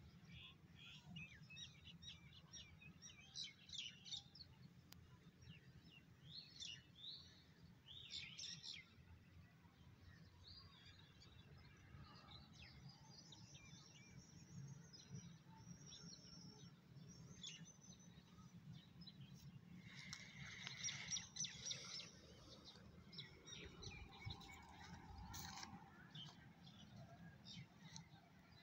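Faint chirping of small birds, with scattered short calls throughout and a louder, busier spell about twenty seconds in.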